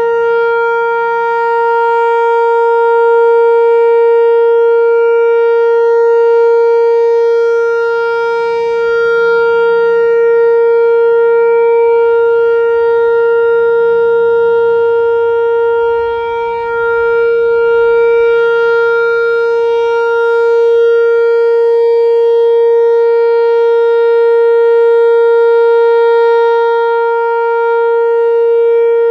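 Whelen Vortex-R4 outdoor warning siren sounding the steady Alert signal of a routine test: one held, unwavering tone that swells and eases slightly in loudness, with a brief dip about two-thirds of the way through.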